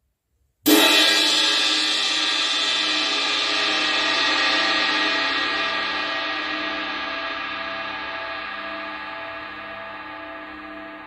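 A 20-inch Omete Mercury Ride cymbal is struck once, just under a second in. It rings out in a long, slowly fading wash, with a slow wobble in its low hum.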